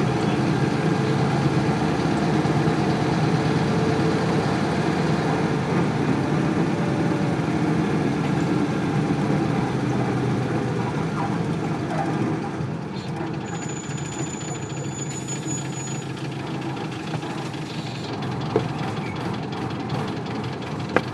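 Isuzu Cubic city bus's 8PE1 V8 diesel engine running, heard from inside the bus, with the sound dropping to a lower level about twelve seconds in; the bus is noted for a very unsteady idle.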